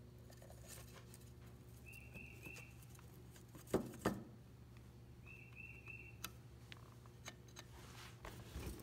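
Handling of a John Deere X758 mower deck's discharge chute flap: two knocks a little under four seconds in, with scattered light clicks. A faint steady hum runs beneath, and short high chirps come in groups of three about every three and a half seconds.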